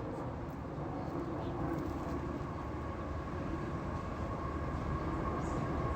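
Steady low rumble with a faint constant hum.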